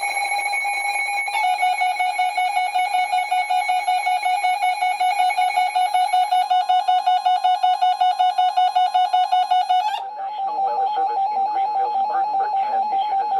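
NOAA weather radio alerting to a new severe thunderstorm warning: a loud electronic alarm beep pulsing several times a second, which shifts pitch about a second in. About ten seconds in it cuts over to a steadier tone with hiss.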